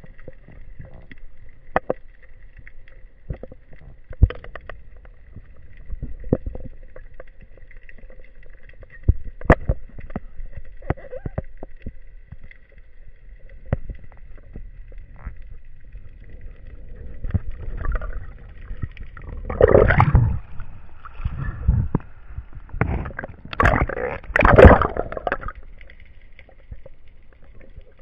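Underwater sound through a diver's camera: faint steady hum with scattered sharp clicks and knocks, then two loud surges of bubbling, churning noise about two-thirds of the way in and again a few seconds later.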